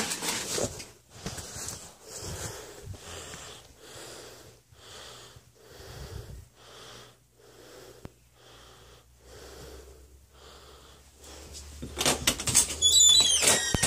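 Rhythmic wheezy breathing close to the microphone, about three breaths every two seconds. Near the end comes loud rustling and clatter with a high squeak that falls in pitch.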